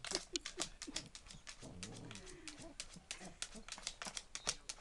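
Boston terrier attacking a plastic foot massager: rapid irregular clicks and scratches of claws and teeth on its plastic casing, mixed with low grumbling growls that bend up and down, heaviest about two seconds in.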